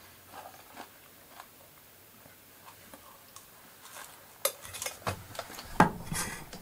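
A metal fork clicking and scraping against a camp bowl as salad is stirred and eaten. Light, scattered clicks come first; in the last two seconds there is a denser, louder clatter.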